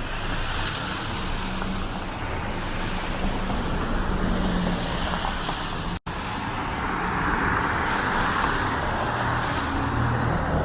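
City street traffic: cars passing with a steady tyre hiss that swells and fades, over a low engine hum. The sound drops out for an instant about halfway through.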